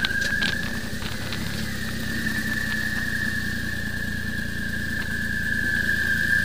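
Motorcycle engine running steadily while riding at low speed. A thin, high, steady whistle sits over it throughout.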